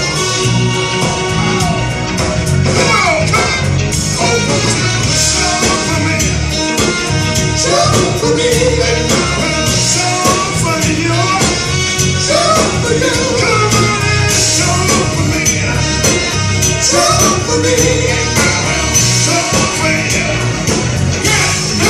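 Live band playing a soul-rock song: steady bass and drums with cymbals, and a sung melody line on top.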